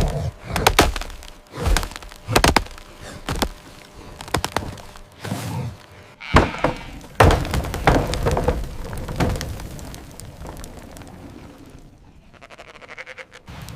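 A series of sharp knocks and thuds, with sheep bleating in among them; it grows quieter after about ten seconds.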